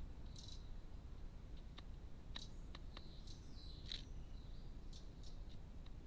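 Carrion crow's bill pecking at a fat ball and seed in a plastic feeding dish: a scattering of short sharp taps, most of them from two to five seconds in. Faint high chirps of small birds in the background.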